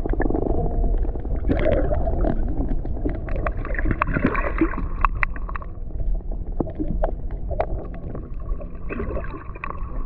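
Muffled water noise picked up by a submerged camera: a low, steady rumbling and gurgling, with scattered sharp clicks.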